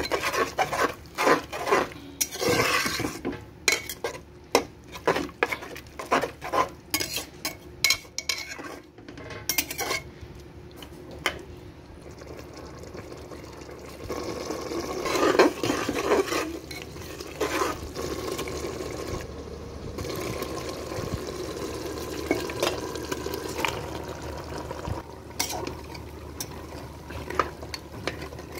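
A utensil stirring food in a metal pressure cooker pot, scraping and knocking against the pot in quick repeated strokes for the first ten seconds, then more sparsely. A steadier rushing noise rises for a few seconds around the middle.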